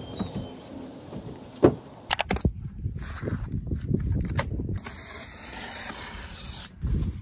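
Utility knife slicing through packing tape and cardboard on a large shipping box: a rough, uneven scraping and tearing from about two and a half seconds on, after a few sharp clicks.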